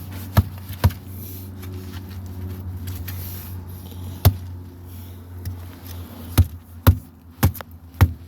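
Sharp knocks, struck one at a time over a steady low hum: two near the start, one midway, and a quicker run of four near the end. They are blows to a 6S LiPo battery to puncture it.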